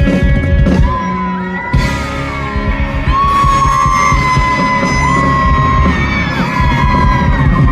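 Rock band playing live and loud, with high held notes that slide up and down in pitch over the drums and guitars. The low end drops out briefly just before two seconds in.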